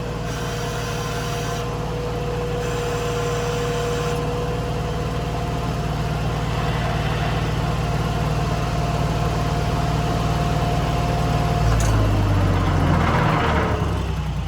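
New Holland skid steer's diesel engine running steadily, with a thin steady whine alongside. About twelve seconds in, the engine note changes and falls away as it is throttled down.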